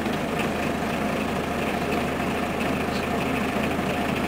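Scania CN113ALB articulated city bus's diesel engine idling steadily with the bus at a standstill.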